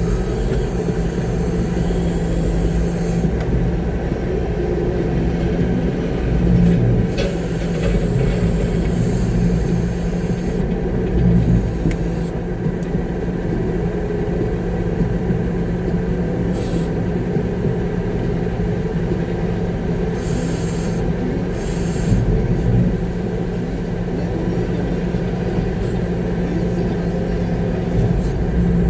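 Concrete mixer truck's engine running steadily, heard from inside the cab, with a constant low rumble and hum.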